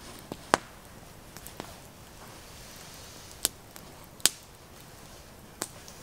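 Wood campfire crackling, with four sharp pops at irregular intervals among fainter ticks over a faint hiss.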